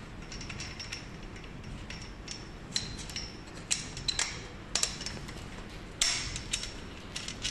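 Irregular sharp metallic clinks and taps as a bolt and the metal tubes of a pull-up station frame are knocked together while being fitted, the loudest about six seconds in.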